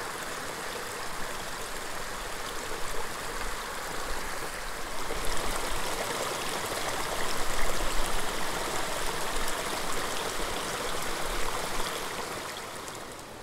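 Running water of a small creek: a steady, even babbling rush that fades down near the end.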